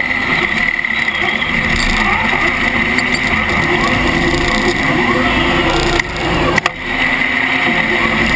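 FRC competition robot's motors and gearboxes running with a steady whine, heard from a camera mounted on the robot, over arena crowd noise and voices. Two sharp knocks about six seconds in.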